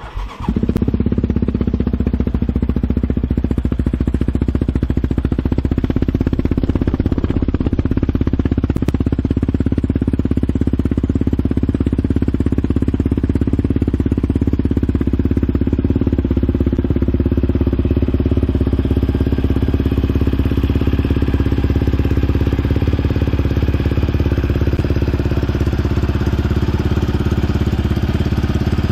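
2006 Yamaha Raptor 700R's single-cylinder four-stroke engine, breathing through an aftermarket HMF Racing performance exhaust, firing up on a cold start in the first second and then settling into a steady, loud idle.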